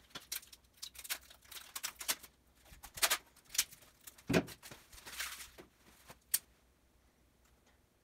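Sponge scrubbing a bicycle's crank arm and pedal: a run of irregular brisk rubbing strokes with a few sharper clicks, which stops about six and a half seconds in.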